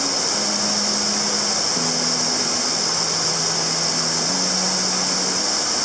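Steady rushing noise of a waterfall, with low sustained tones of background music that change pitch every second or two.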